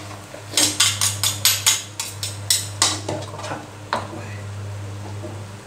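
Spatula and spoon scraping and knocking against a metal wok while stirring a thick sauce: a quick run of about a dozen strokes in the first three seconds, then a couple of single knocks, over a steady low hum.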